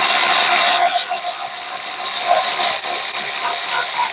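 Cordless electric ratchet with a 19 mm socket running steadily, spinning out a rear brake caliper bracket bolt. It is a little louder for the first second, then runs on slightly softer.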